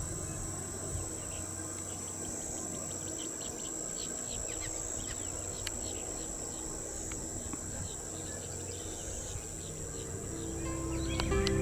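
Insects droning steadily at a high pitch, with many short bird chirps scattered through. Music fades in near the end.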